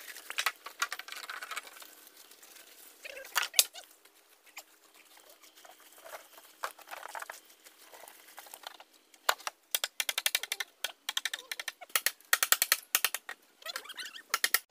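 Hollow bamboo poles knocking and clattering against one another as they are carried and laid on a pile: a string of sharp knocks, scattered at first and coming thick and fast in the last few seconds.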